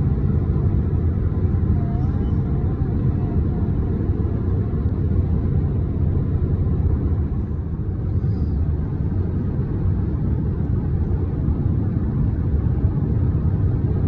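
Steady low road and engine rumble heard inside a car's cabin while cruising at highway speed.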